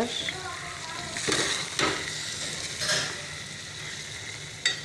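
A spoon stirring thick aloo baingan curry in an aluminium pot: a few scraping strokes over a low, steady sizzle as the curry cooks on low heat, with a sharp click near the end.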